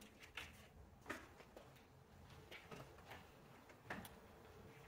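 Faint, scattered clicks of plastic push clips being pried loose along the top of a car's front bumper cover with a small tool, about half a dozen short ticks over a few seconds.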